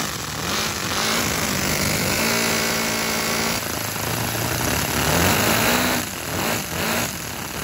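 Homemade LEGO-brick piston engine running with a busy mechanical clatter, its speed dipping and picking up again a few times in the second half.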